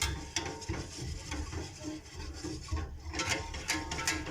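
Lemon pastry cream being stirred in a pot over the heat, with the utensil scraping the pan in quick, regular strokes.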